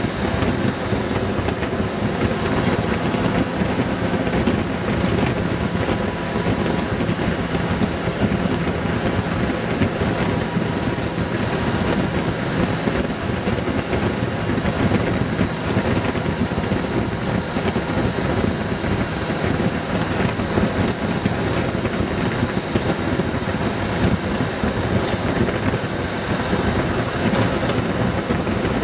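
Honda Gold Wing GL1800 riding steadily at road speed: a constant rush of wind over the microphone with the hum of its flat-six engine underneath.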